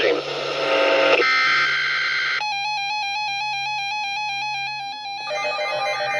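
Synthesized electronic music of beeping tones. It opens with a noisy, buzzy burst, then warbles rapidly between two pitches, and the pattern changes about five seconds in.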